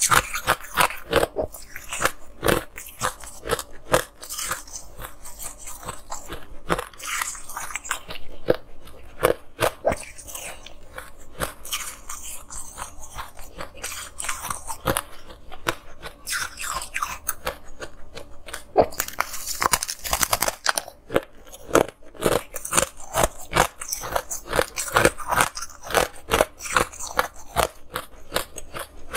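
A person biting and chewing frozen ice blocks close to the microphone: a dense, continuous run of sharp cracks and crunches as the ice breaks between the teeth, thickest about two-thirds of the way through.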